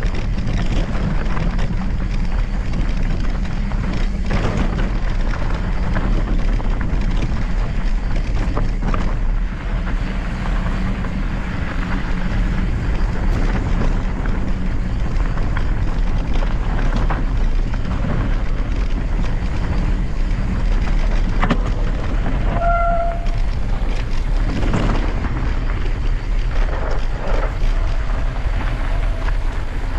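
Mountain bike riding fast down a rocky dirt trail: a steady rumble of wind and tyres on the camera microphone, with constant knocks and rattles as the bike crosses rocks. A brief squeak about three-quarters of the way through.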